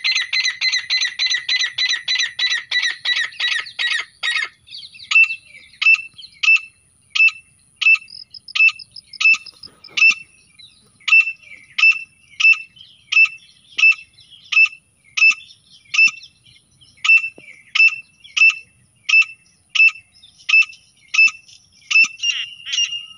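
Grey francolin calls played as a hunting lure. For about the first four seconds they come as a fast, rattling series of notes, then change to single sharp, high notes repeated evenly, about one and a half per second.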